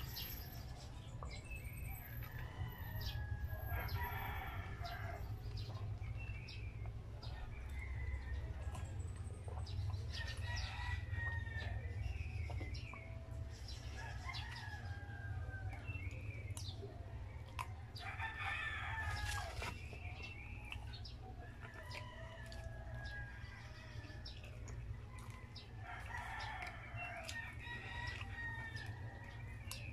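Eating sounds: short clicks of a plastic spoon against a paper food box, and chewing. Behind them a bird calls in the distance about four times, each call a second or two long and some eight seconds apart, over a steady low hum.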